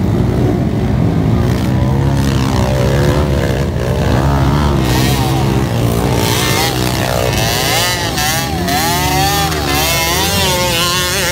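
Dirt bike engines revving hard under load on a steep loose-dirt hill climb, the revs rising and falling again and again in the second half as the bikes fight for grip.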